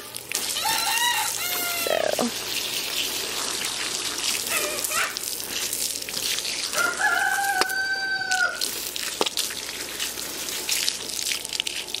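Garden hose spray nozzle hissing as it rinses mud off rubber mucking boots. A rooster crows, one long call just past the middle.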